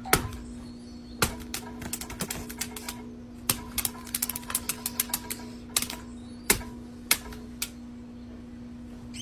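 A run of sharp, irregular clicks and taps, some in quick clusters, over a steady low hum.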